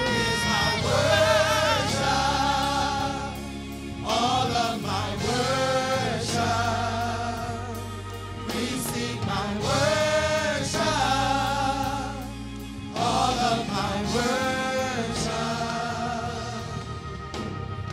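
Mixed gospel vocal group singing together in long, sustained phrases with vibrato. The singing sits over steady low instrumental accompaniment.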